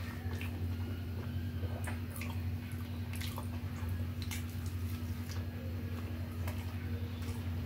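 Eating rice and curry by hand: fingers squishing the food, then wet, smacking chewing, heard as scattered short clicks over a steady low hum.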